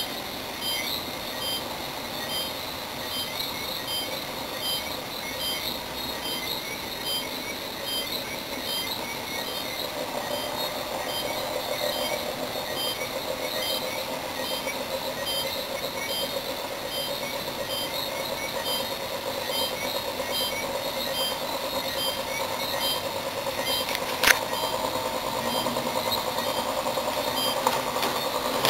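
Homemade iron-core axial flux pulse motor running: its rotor spins with a steady whir under a fast, regular high ticking from the pulsed coils. The whir strengthens from about ten seconds in, and a single sharp click comes a little after twenty-four seconds.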